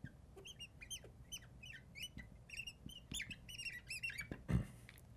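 Marker squeaking on a glass lightboard as words are written: a quick run of short, high squeaks, one for each stroke. A dull thump comes about four and a half seconds in.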